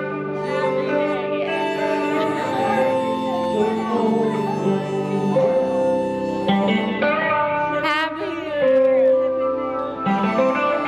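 Guitar-led music playing steadily, with held notes changing every second or two.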